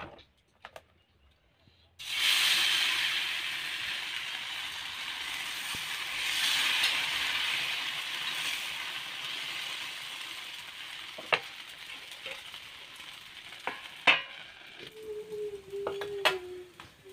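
Potato-and-rice batter sizzling on a hot iron tawa over a wood fire as it is ladled on and spread into a chhilka roti. The sizzle starts suddenly about two seconds in and slowly dies down, with a few clicks of the metal ladle near the end.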